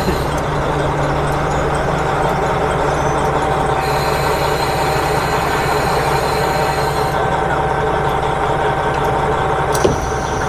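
A JR Hokkaido KiHa 40 diesel railcar creeps in alongside the platform and stands with its diesel engine idling, a steady rumble with a held tone. There is a single sharp click near the end.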